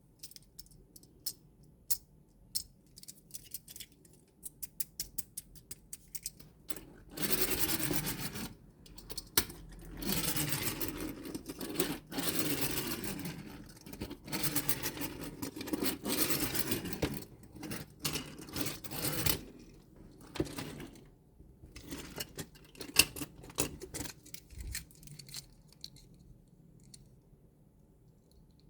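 Small toys and their packaging being handled: sharp clicks and taps at first, then a long stretch of rubbing and scraping, then more scattered clicks and clinks near the end.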